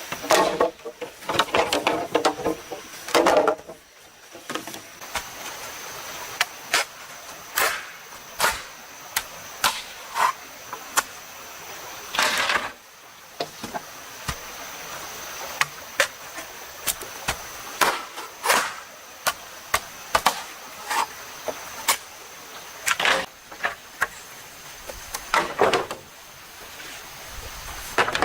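Irregular sharp knocks and chops of a tool working bamboo, a few of them louder and heavier, over a steady background hiss.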